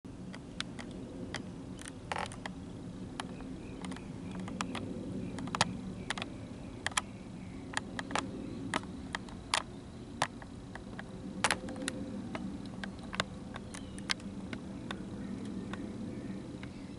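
Distant jet airliner engines overhead: a steady low rumble. Over it come irregular sharp clicks, roughly one or two a second, which are louder than the rumble.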